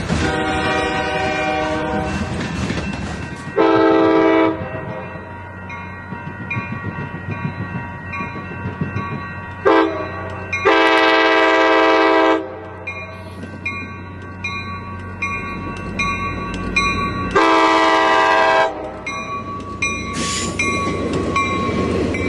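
Locomotive horns sounding a series of blasts over the steady rumble of passing trains: one at the start, a long blast about four seconds in, a short and then a long one around ten to twelve seconds, and another long one near eighteen seconds. Near the end, the wheels of bilevel commuter cars run past on the rails.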